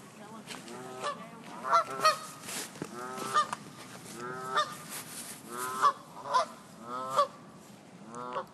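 Several geese honking back and forth in a string of loud, repeated calls, one or two a second, sounding like they are arguing.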